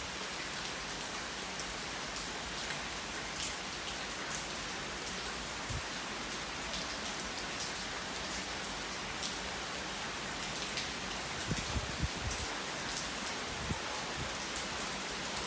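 Heavy typhoon rain falling steadily as an even hiss, with many close drops ticking and a few low thumps about twelve seconds in.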